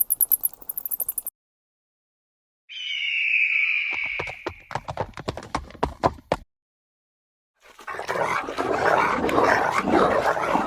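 Sound effects for imaginary creatures built from animal sounds: a brief rapid high chatter, then a screech that turns into a quick run of sharp clicks, then a continuous dog-like racket that lasts to the end.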